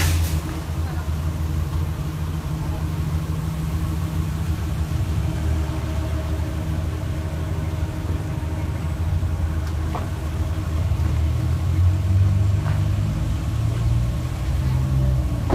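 Car engine idling with a steady low rumble and hum, with a couple of faint clicks near the end.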